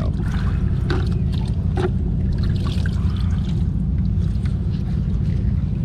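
Water poured over a handgun to rinse it, trickling and splashing with small clicks, over a steady low rumble.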